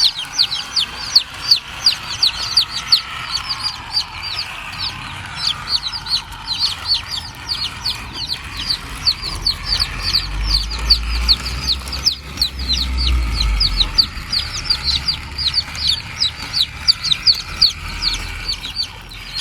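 Chicks peeping steadily: many short, high, falling peeps a second, over a fainter background of chicken clucking.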